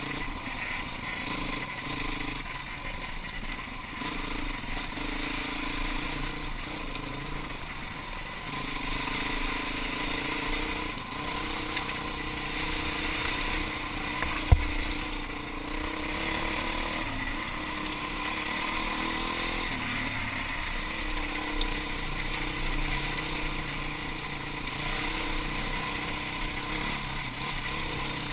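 Enduro dirt bike's engine running and changing pitch with the throttle as it rides a rough gravel track, heard from a helmet-mounted camera with wind noise. A single sharp knock about halfway through.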